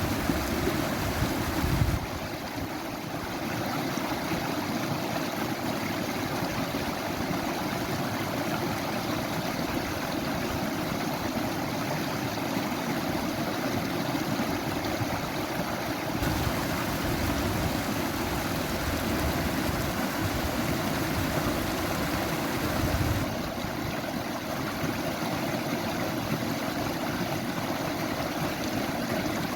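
Steady rush of flowing water, as from a stream or waterfall. Its tone changes abruptly about two seconds in, again a little past halfway, and about three-quarters through.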